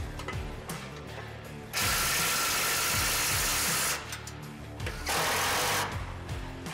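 Cordless DeWalt power driver tightening bolts on the truck's frame in two runs: one of about two seconds, then a short one near the end. Background music plays under it.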